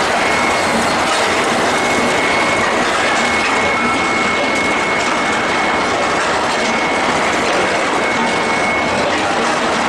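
Steady, loud machinery noise of a steel ball hot-rolling line with its induction bar-heating furnace, with a thin high whine running through it that drops out briefly now and then.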